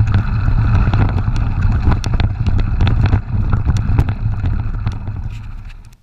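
Mountain bike riding over a rough dirt and stone trail, picked up by a camera riding along: a steady low rumble of wind buffeting the microphone, with frequent rattling clicks from the tyres and bike on the stones. It fades out near the end.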